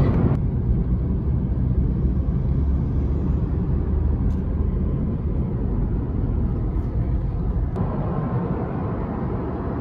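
Inside the cabin of a Honda Civic Si cruising at about 38 mph: steady low engine and road rumble.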